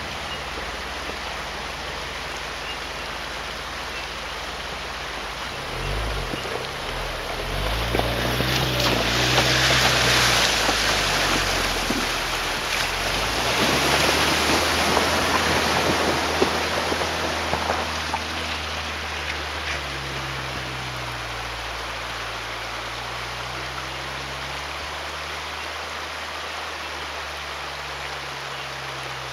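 Vehicle fording a river: the engine runs at low revs while water splashes and rushes against it. The splashing swells in the middle, loudest twice, then settles back to the engine alone.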